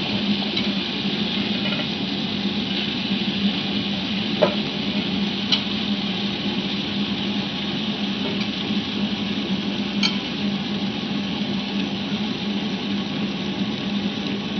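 Tabletop wet grinder running: its motor hums steadily as the stone rollers turn in the steel drum, grinding soaked urad dal into batter, with a few faint ticks.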